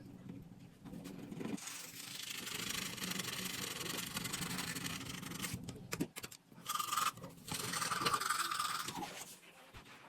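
Toothbrush scrubbing teeth: a steady rasping scrub with a couple of short breaks about two-thirds of the way through.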